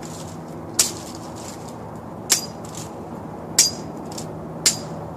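Four sharp whacks on small cherry limbs, about one every second and a quarter, as branches are chopped down into short pieces for a burn pile.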